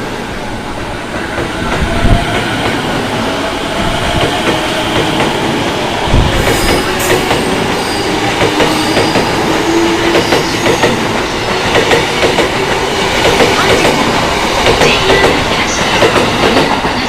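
Keihin-Tohoku line E233-series electric train pulling out of the platform: the motors whine, rising in pitch, and the wheels click over the rail joints more and more often as it gathers speed.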